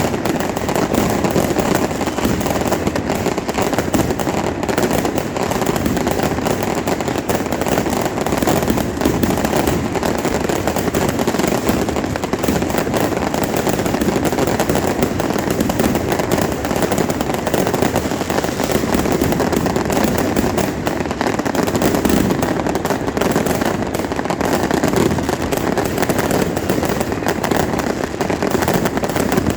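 Fireworks and firecrackers going off in a dense, continuous crackle and pop, without a break.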